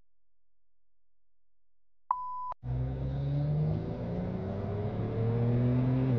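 Near silence for about two seconds, then a short beep, then a car engine pulling under acceleration, its revs climbing steadily.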